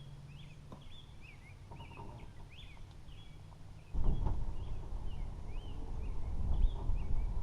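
Small birds chirping, a steady string of short repeated calls over outdoor background noise. About four seconds in, a louder low rumble comes in and continues under the chirps.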